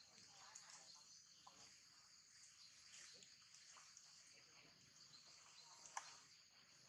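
Near silence outdoors with a faint, steady high-pitched insect hum in the background, scattered small ticks, and one sharp click about six seconds in.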